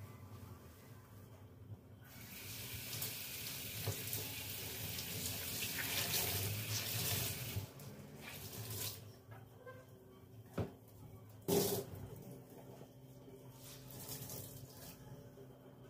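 Kitchen tap running water into a sink for several seconds, then shut off, followed by two sharp knocks.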